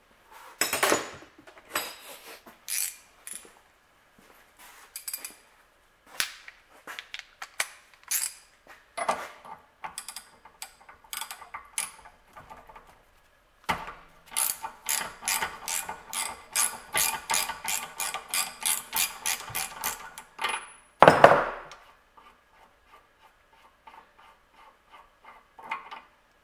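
Socket ratchet clicking as it works the dump (unloader) valve loose from a pressure washer pump: scattered clicks and knocks, then a fast even run of about four or five clicks a second for several seconds. A loud knock follows near the end, then fainter ticking.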